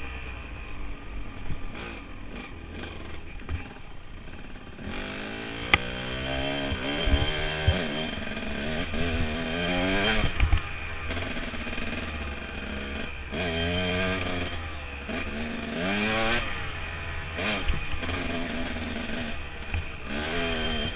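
Off-road motorcycle engine on the move, quieter for the first few seconds, then revving up and down again and again as the throttle is worked. A couple of sharp knocks come through the bike.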